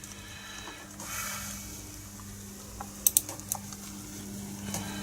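Computer keyboard keys clicking in a short quick cluster about three seconds in and again near the end, over a steady low hum.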